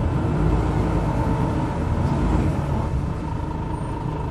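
Single-decker diesel bus heard from inside the saloon while driving along: steady engine and road rumble with a thin steady whine, a little louder in the first couple of seconds.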